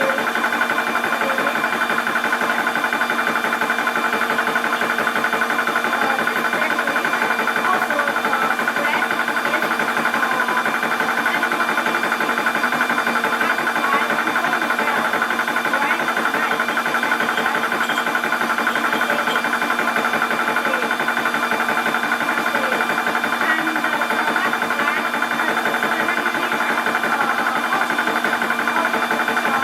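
Portable 12-volt high-pressure PCP air compressor running steadily: an even mechanical drone with several constant tones and a fast rattle.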